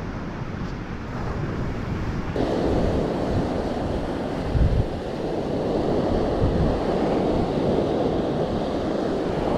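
Rough sea surf washing on the shore, with wind buffeting the microphone in a heavy low rumble. The surf turns abruptly louder about two and a half seconds in.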